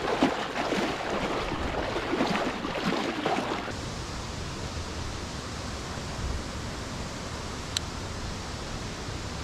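Swim fins kicking behind a float tube, churning the water in quick uneven splashes; about a third of the way in this cuts off abruptly to a steady hiss, with one short sharp click near the end.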